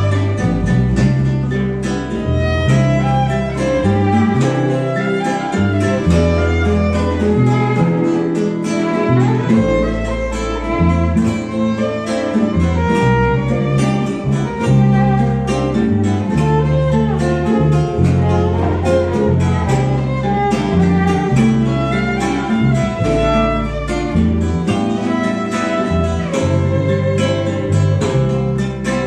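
Live string band playing an instrumental passage: a violin carries the melody over steadily strummed cuatros and guitar, with a bass line moving underneath.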